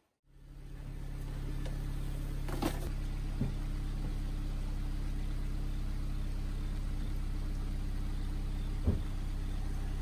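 SUV engine idling with a steady low hum, with three short clicks: about three seconds in, a second later, and near the end.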